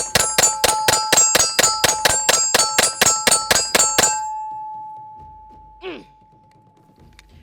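Rapid fire from a compensated double-stack 1911 pistol in 9mm: a steady string of about twenty shots, about five a second, each with a metallic ring, stopping about four seconds in.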